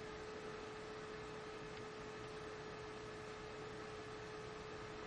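Faint steady hum on one pitch over a low hiss: the background noise of the recording.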